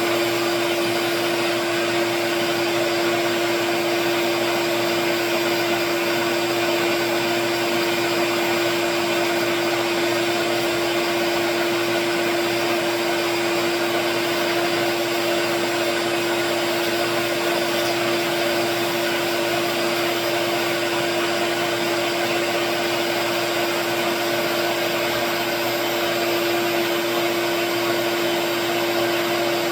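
Small wood lathe running at a steady speed with a constant motor hum, while sandpaper is held against the spinning pen blank for the first smoothing pass.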